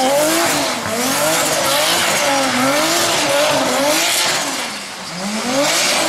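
BMW E30 drift car's engine revving up and down about once a second under throttle modulation through a drift, over the hiss of its tyres sliding on wet tarmac. It eases off briefly near the end.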